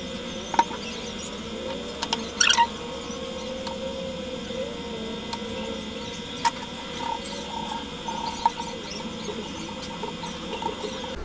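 Fan motor parts being fitted together by hand: several light metal clicks and knocks, a quick cluster of them about two and a half seconds in, over a steady hum.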